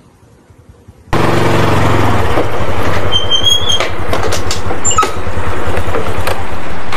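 Motor scooter engine running close by, coming in suddenly about a second in and then running steadily, with scattered clicks and a few brief high squeaks over it.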